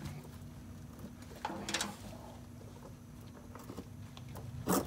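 Cordless rechargeable ratchet with a 3/4 inch socket run in two short bursts, about a second and a half in and near the end, running the oil drain plug back into the engine's oil pan.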